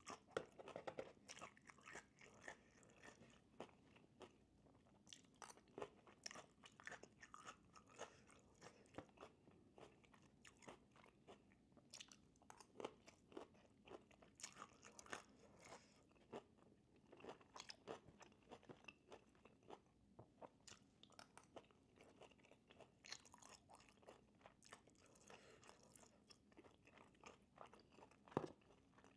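A person chewing crunchy cooked vegetables close to the microphone, quiet irregular crunches and bites, with one sharper crunch near the end.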